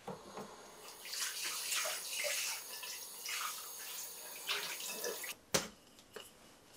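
Water running and splashing, which stops abruptly about five seconds in, followed by a single sharp click.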